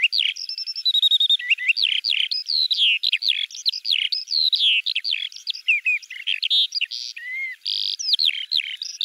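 Songbirds chirping and whistling in a dense, fast chorus of overlapping high-pitched calls, many quick rising and falling sweeps.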